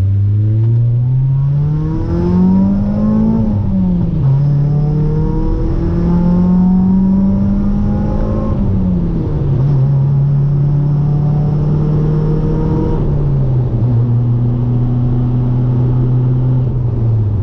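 Car engine accelerating through the gears: its pitch climbs, drops at a shift about three and a half seconds in, climbs again, then steps down twice more and holds steady at cruise. The engine is setting misfire codes P0300 to P0304.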